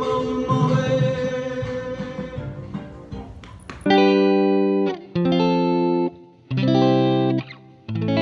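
Music for a dance: a busy passage fades over the first three seconds, then gives way to a run of held chords, each about a second long, with short breaks between them.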